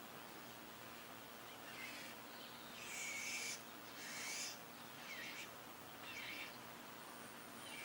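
Wild birds calling: a few short, raspy, high-pitched calls, the loudest two about three and four seconds in, with short downward chirps between them.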